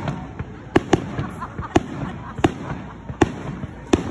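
Fireworks display: aerial shells bursting in a string of sharp bangs, about six in four seconds at uneven intervals, with a steady noisy background between them.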